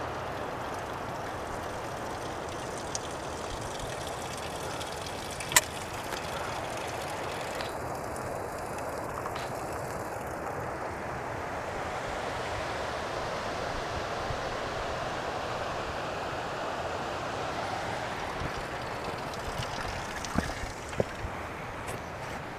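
A steady rushing noise, with one sharp click about five and a half seconds in and a few short knocks near the end.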